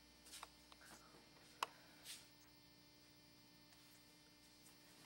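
Near silence: a faint steady hum of room tone, with a few small handling rustles and one sharp click in the first two seconds.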